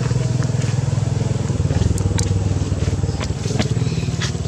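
A small engine running steadily with a low, even hum, with a few short sharp clicks and ticks over it.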